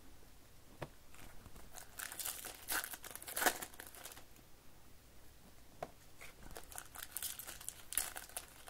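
Plastic and foil trading-card pack wrappers crinkling and tearing as Topps baseball card packs are opened by hand. The wrapper noise comes in bursts, with small clicks from the cards being handled in between.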